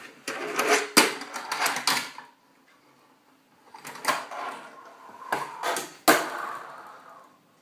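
Knocks, clicks and rustling of objects being moved and handled, as in someone rummaging for something. The sounds come in two spells with a short quiet gap between them.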